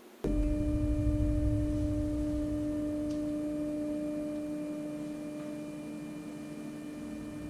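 Stepper motor driving a model railroad turntable bridge round at a constant step rate: a steady, even-pitched whine with overtones. It starts abruptly just after the start and fades slightly toward the end.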